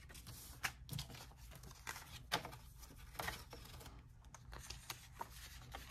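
Quiet, intermittent rustling of paper banknotes and a paper savings envelope being handled, with a few light taps.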